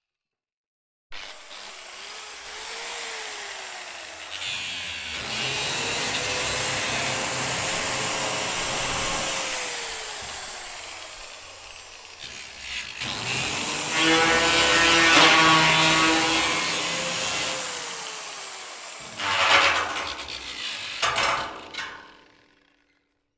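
Angle grinder on metal: the motor spins up with a rising whine, then the disc grinds with a harsh hiss and the whine falls away as it slows. It grinds again with a ringing screech, then gives a few short bursts of contact before stopping.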